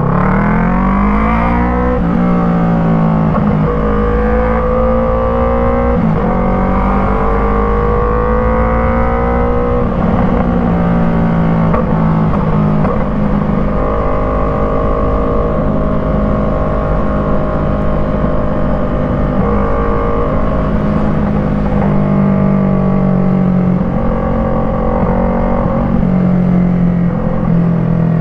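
Yamaha MT-03's parallel-twin engine through an Arashi aftermarket exhaust with its dB killer fitted, accelerating and shifting up through the gears. The pitch climbs and drops back at each shift, about 2, 4, 6 and 10 seconds in. After that it cruises at a fairly steady pitch, with small throttle changes.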